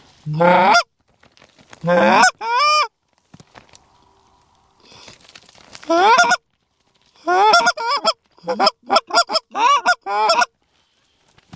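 Canada goose honks, loud and close. A few single honks come first, then a longer one, then from about seven seconds in a rapid run of short honks and clucks.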